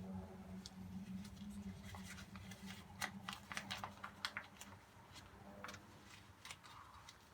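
Scattered small clicks and taps of hands and tools fitting the terminal bolt to a motorcycle battery's terminal nut, over a low steady hum.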